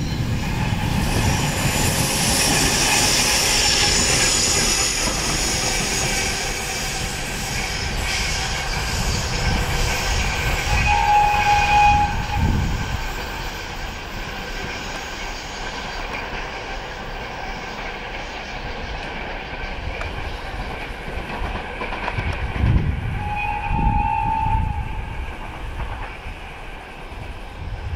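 A ChME3 diesel shunting locomotive is running past, its diesel engine working and its wheels rattling over the rails, loudest in the first few seconds. Its horn sounds two short blasts of about a second each, one around eleven seconds in and the other about twelve seconds later.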